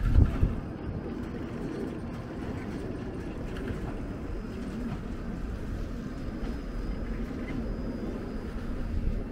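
Passenger coaches of an express train rolling slowly past on the track, a steady low rumble of wheels on rail. A brief loud low thump just at the start.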